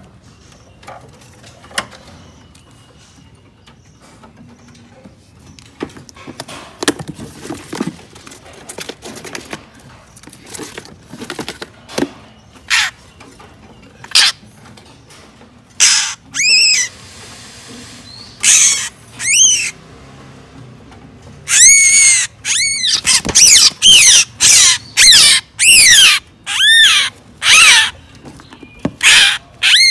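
White-rumped shama giving loud, harsh distress screeches, the cries of a freshly wild-caught bird being handled. The screeches start about halfway through and come in quick runs, after a quieter stretch of light clicks and rustling.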